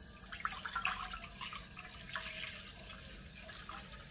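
Water pouring from a plastic measuring jug into a non-stick frying pan, splashing unevenly, with the loudest splashes in the first second and a half before it settles into a steadier pour.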